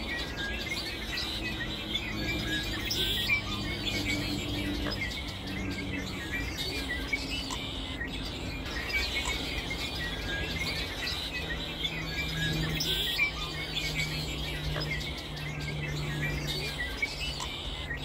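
Many small birds chirping and twittering continuously, over a soft, sustained low musical tone that moves to a new note every few seconds.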